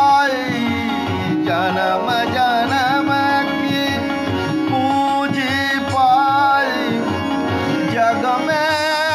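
Indian devotional music: an ornamented melody bending and sliding between notes over steady tabla strokes and a held drone.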